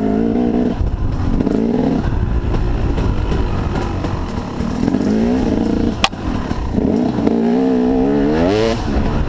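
KTM 250 EXC two-stroke enduro engine being ridden on a dirt trail, its pitch climbing and dropping again and again as the throttle opens and closes, with a long rise near the end. A sharp click about six seconds in.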